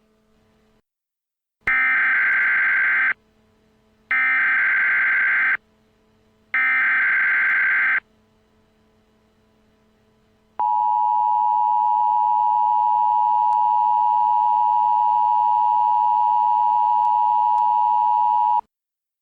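Emergency Alert System SAME header: three bursts of warbling data tones, each about a second and a half long and spaced about a second apart, followed by the two-tone EAS attention signal held steady for about eight seconds. Together they mark the start of a new emergency alert.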